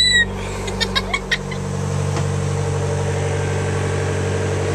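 Boat's inboard engine running steadily, a low even drone heard inside the cabin. A child's short high rising squeal right at the start.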